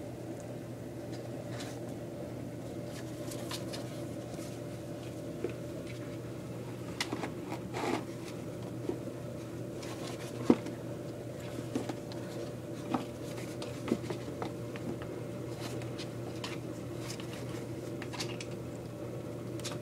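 Kittens' claws and paws scrabbling against a hard bucket and the floor as they play, scattered small clicks, scratches and taps with one sharper knock about halfway through, over a steady low hum.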